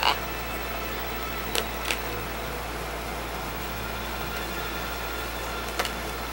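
Empty plastic water bottle giving a few sharp clicks and crackles as a scarlet macaw bites and grips it: one at the start, two about a second and a half in, one near the end, over a steady background hum.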